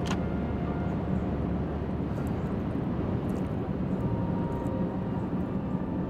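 Steady low rumble of a car on the road, heard from inside the cabin, with a single click at the very start.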